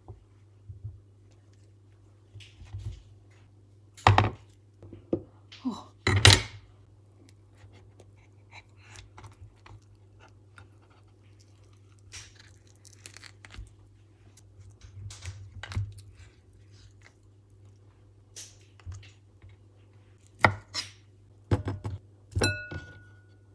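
Handling an avocado on a wooden cutting board: knife and spoon knocking and scraping, with two sharp knocks about 4 and 6 seconds in and softer taps and scrapes as the flesh is scooped from the skin. Near the end, a short ringing clink as the avocado goes into a glass bowl.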